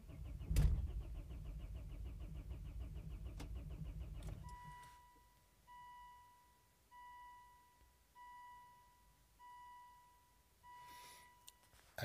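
Diesel car engine cranking on the starter motor for about four and a half seconds without firing: a cold non-start, turning at only about 200 rpm. Once the cranking stops, six evenly spaced electronic beeps sound, about a second apart.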